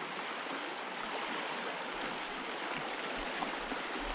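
Creek water flowing steadily, a continuous even rush.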